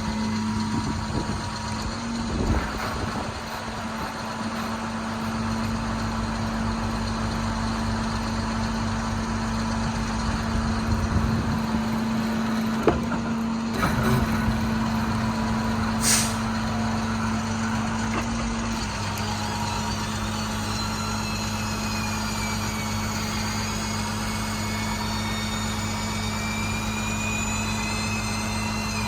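International 4300's MaxxForce DT diesel running steadily at idle, with a short burst of air hiss about 16 seconds in.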